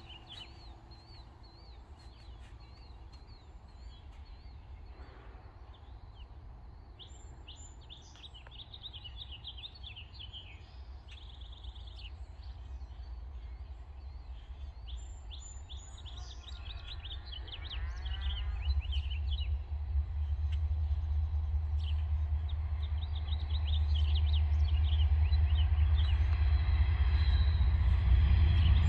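Small birds chirping and singing over the low rumble of an approaching diesel freight train, which grows steadily louder, most markedly in the last ten seconds.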